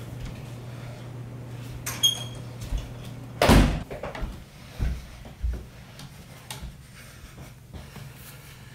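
A short squeak about two seconds in, then a loud thud of a door about three and a half seconds in, with scattered knocks and steps of someone walking across a room. A steady low hum stops at the thud.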